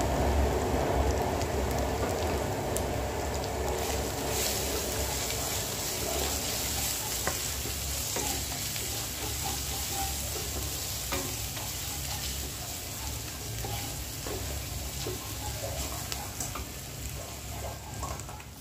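Sliced onions frying in oil in a kadai, sizzling, while a wooden spatula stirs and scrapes the masala with scattered light knocks. Chilli and turmeric powder are being fried into the onion base (the kasha stage).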